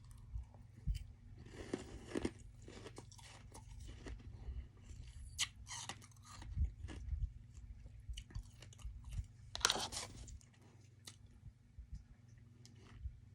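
Close-miked chewing of soft freezer-frost ice: irregular crunches, with louder bouts about two seconds in and again near ten seconds, over a steady low hum.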